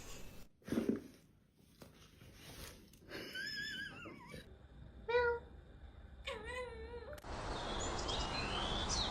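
A cat meowing: three drawn-out calls with a wavering pitch, the middle one short.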